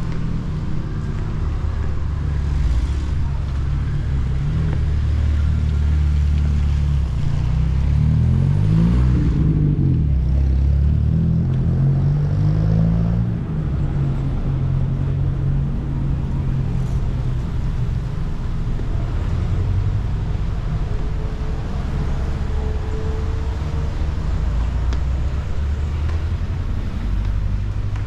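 City street traffic: motor vehicle engines running close by, with one engine's pitch sweeping up and down about eight to ten seconds in.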